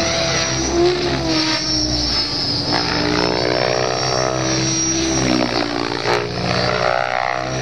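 Electric RC helicopter (Logo XXtreme) in 3D aerobatic flight: its main rotor and motor drone loudly, the pitch sweeping up and down as it manoeuvres.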